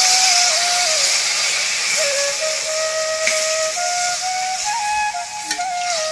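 Vegetables sizzling and steaming in a hot iron karahi over a wood fire: a strong hiss that slowly eases, the sizzle of water just poured into the hot pan. A spatula scrapes the pan now and then, under background music with a simple melody that steps between held notes.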